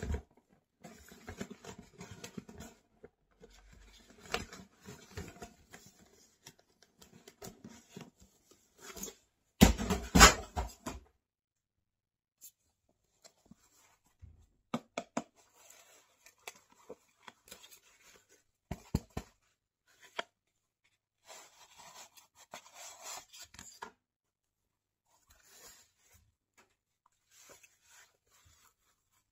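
Cardboard shoebox and packaging rustling and crinkling as a pair of Skechers trainers is unboxed, loudest in a burst about ten seconds in. Then short taps, scratches and rubbing as a black knit-mesh trainer with a rubber sole is handled.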